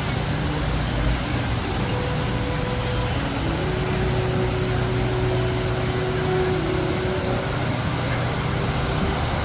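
Steady low hum and rushing background noise aboard a sailing ship under way on a river, with a few faint drawn-out tones above it.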